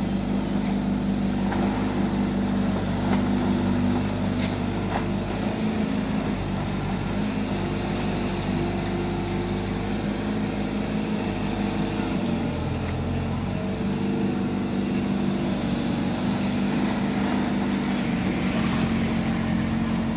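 Diesel engine of a barge-mounted Kato HD450 long-reach excavator running steadily under load as it works the boom and bucket. The engine note shifts about twelve seconds in, then settles back.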